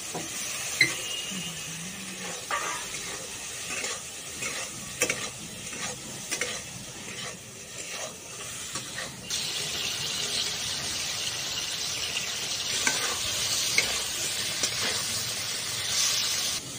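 Crab pieces sizzling as they fry in mustard oil in a steel kadai, with a steel spatula scraping and clicking against the pan as they are stirred. The sizzle grows louder about nine seconds in.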